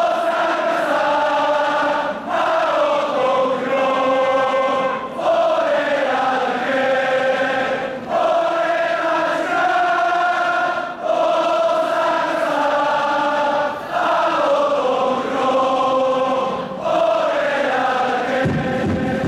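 A large crowd of Gamba Osaka football supporters singing a chant together in unison: a melodic song in repeated phrases. Near the end a lower, rougher crowd sound joins in under the singing.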